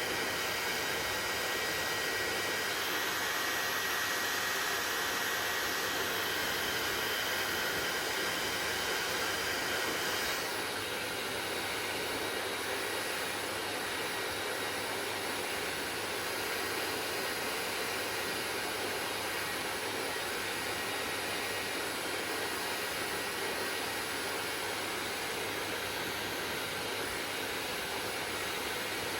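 Hair dryer running steadily, a continuous rushing noise with a few faint steady tones. About ten seconds in the sound shifts and becomes slightly quieter.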